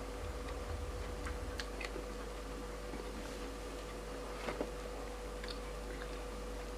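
Faint, scattered mouth clicks and soft smacks of someone chewing fried chicken wings, over a steady faint hum.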